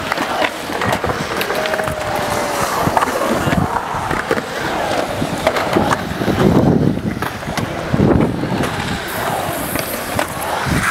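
Skateboard wheels rolling and carving on a concrete bowl, a continuous rumble with scattered sharp clacks, swelling louder for a few seconds past the middle.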